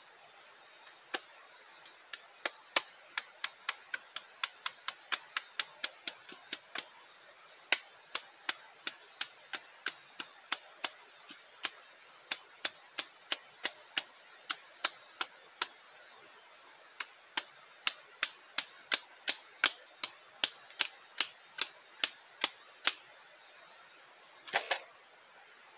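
Quick, light machete strokes on a green sapling trunk, about three a second in three long runs with short pauses, then a heavier double knock near the end. A faint steady insect whine underneath.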